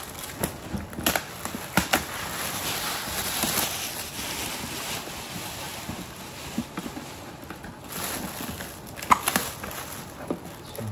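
Gift wrapping and plastic packaging rustling, crinkling and tearing as a present is unwrapped, with scattered sharp crackles.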